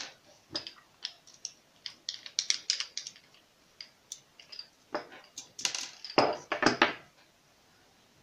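Hands working apart a plastic 12-volt cigarette-lighter plug: a string of small irregular plastic clicks and rattles, busiest about five to seven seconds in.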